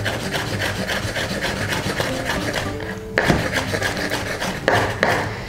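Chef's knife rapidly chopping herring fillet on a wooden cutting board, mincing it fine by hand: quick, even strokes of the blade against the wood. The chopping breaks off briefly about three seconds in with a low knock, then carries on.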